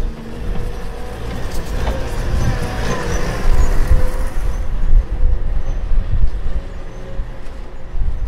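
Wind buffeting the microphone in a heavy, uneven low rumble during a snowstorm.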